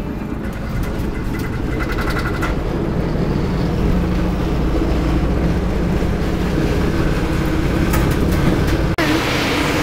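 Inside a glider's cockpit on an aerotow takeoff roll: a steady rumble and rattle from the wheel and airframe on the runway, growing louder as it picks up speed, with a few clicks in the first seconds. Near the end it cuts suddenly to a steady rush of air in flight.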